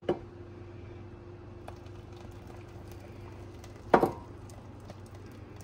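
Thick puréed soup being poured from a blender jar into a pot, with one short plop or knock about four seconds in, over a faint steady hum.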